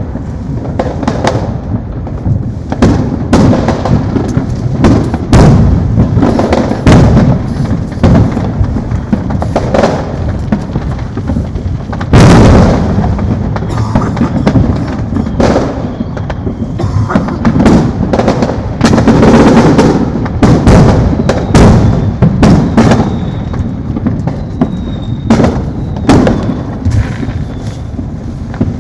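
Consumer fireworks going off continuously, many of them illegal professional-grade ones: a dense run of overlapping booms, bangs and crackling pops with no pause. An especially big burst comes about twelve seconds in.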